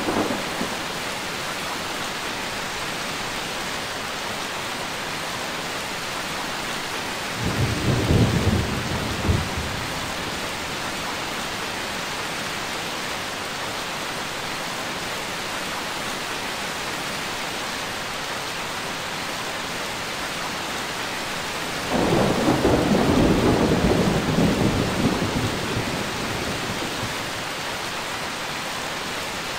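Steady heavy rain with rolling thunder: a short low rumble about a quarter of the way in, and a longer, louder peal starting about three quarters of the way through that slowly dies away.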